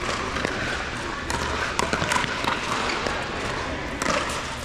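Basketball game sound in a gym: a ball bouncing on the court and scattered knocks amid the general hubbub of crowd and player voices.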